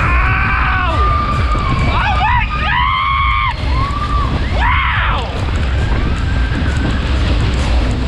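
Riders screaming on a fast-spinning Matterhorn-style fairground ride: high-pitched screams that rise and fall, three times, over a steady rumble of wind on the microphone.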